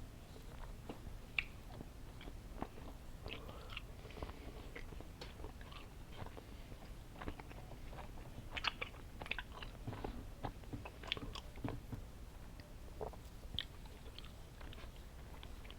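Close-up chewing of candy, with irregular wet clicks and mouth smacks, a few sharper ones standing out.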